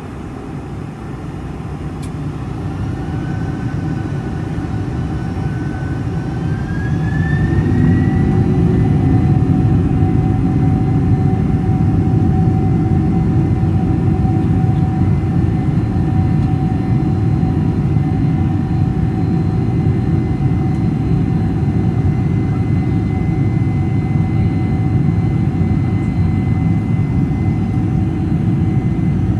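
Boeing 747-400's General Electric CF6 jet engines heard from inside the cabin, spooling up to takeoff thrust: a rising whine and growing rumble over the first eight seconds or so, then a loud, even, steady run.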